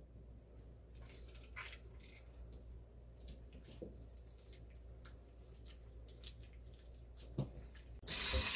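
Faint wet squelching and small clicks of a raw octopus being squeezed and kneaded with sugar in a plastic bowl, with one sharper knock shortly before the end. Right at the end a tap opens and water starts running into the bowl.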